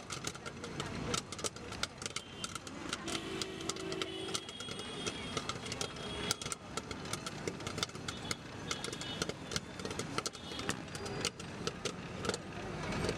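Popcorn kernels popping in a metal stovetop popcorn pot over a gas burner: a dense, irregular run of sharp pops, with street traffic in the background.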